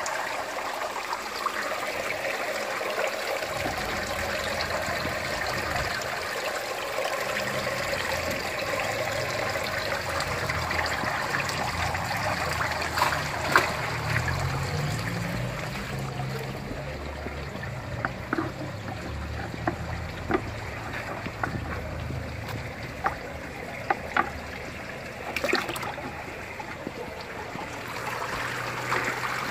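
Water pouring into an aquaponics fish tank, splashing steadily on the surface. Several short sharp knocks come through in the middle stretch.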